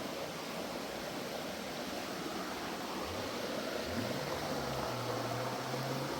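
Steady rushing noise of flowing river water, with a faint low hum that glides up in pitch twice, about three and four seconds in.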